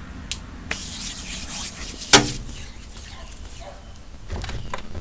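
Block of gym chalk crushed by hand: crisp crunching and crumbling, with one sharp, loud crack about two seconds in and a few smaller crackles near the end.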